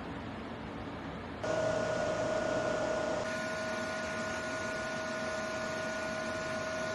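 A steady electrical hum with a hiss under it, coming on abruptly about a second and a half in and holding steady.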